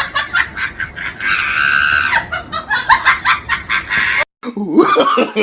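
Rapid clucking calls from a bird, with a longer held squawk about a second in; the sound breaks off abruptly near the end.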